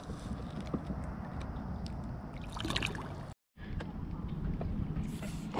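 Water sloshing and a splash as a largemouth bass is let go over the side of a small boat, over a steady low rumble, with a few small knocks from handling. The sound drops out for a moment about three and a half seconds in.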